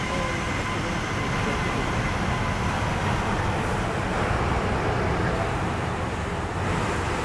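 Jet engines of a taxiing Aerolíneas Argentinas Boeing 737 running at low power, a steady rush with a faint whine that fades early on. A large road vehicle passes close by about four seconds in, adding a brief swell of road noise.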